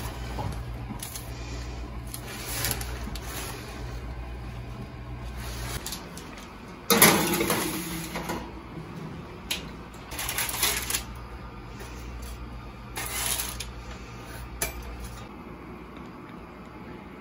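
Kitchen clatter as a metal baking sheet of cookies is slid onto an oven rack, with the loudest clatter about seven seconds in. A steady low hum runs underneath.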